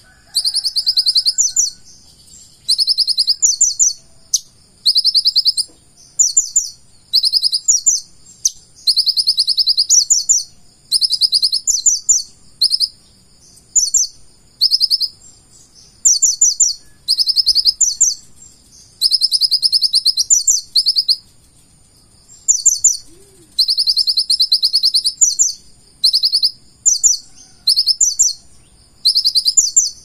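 Male purple-throated sunbird singing: loud phrases of rapid, very high-pitched trilled notes, each about a second long, repeated every second or two with short pauses between.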